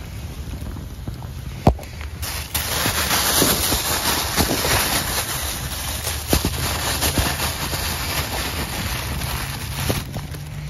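Wind gusting over the microphone: a strong rushing noise that swells about two and a half seconds in and eases near the end, broken by a few sharp clicks.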